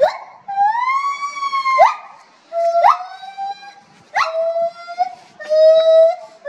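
Primates calling: a run of about four long, clear, held calls one after another, each lasting about a second. Several end in a quick upward squeal, and the later calls are lower in pitch.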